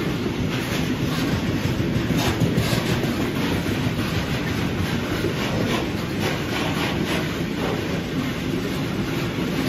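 Freight train of bogie hopper wagons rolling steadily past: a continuous rumble of steel wheels on rail, with repeated clicks from the wheels and wagons.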